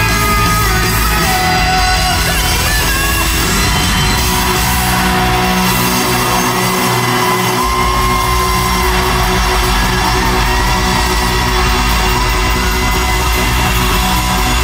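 Live rock band playing loud with singing, heard from the audience in a large arena. The bass drops out briefly about halfway through, then comes back in.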